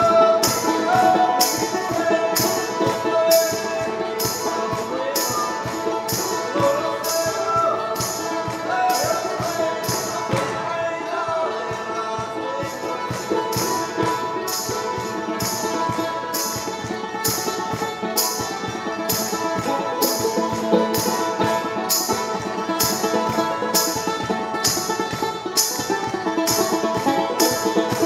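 Banjo played in a fast, driving instrumental over a steady beat, with a tambourine jingle on every beat at about three strikes every two seconds.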